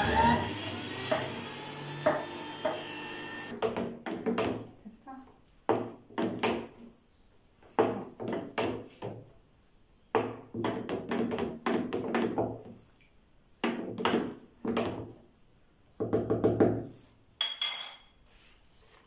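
Electric centrifugal juicer motor running, cutting off about three and a half seconds in. Then a spoon knocks and scrapes in irregular bursts against a plastic jug as the fresh juice is stirred.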